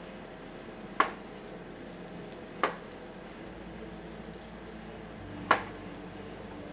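Three sharp single knocks of kitchen utensils, well spaced: about a second in, near the middle, and near the end, over a steady low kitchen hum.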